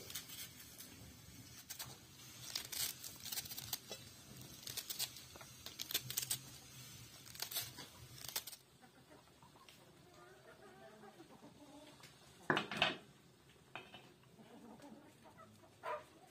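Irregular crackling and popping from a steaming pot on a wood-burning stove. Then a knife crunching sharply through a head of cabbage, twice, with hens clucking softly in the background.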